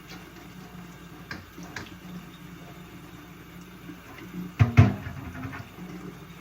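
Water splashing quietly as a dirty car part is washed, with a few small clicks and two loud knocks about four and a half seconds in, as the part hits the basin.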